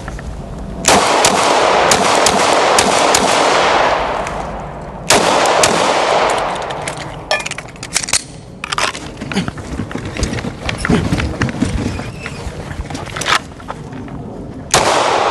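Gunshots in quick strings during a timed shooting stage. A dense run of shots starts about a second in, a second run starts about five seconds in, and then come scattered single shots.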